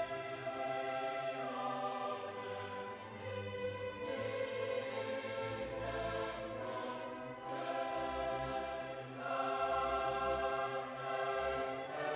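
Background music: a choir with orchestra holding slow, sustained chords that change every second or two.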